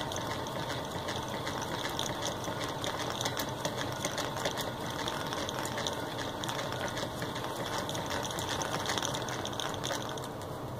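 Hand-cranked Singer 15-30 sewing machine running steadily as its bobbin winder spins, filling a round bobbin with thread; a steady, fast mechanical ticking.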